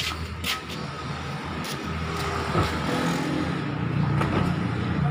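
A motor vehicle engine running with a steady low hum that grows louder about three seconds in, with a few short, sharp clicks over it.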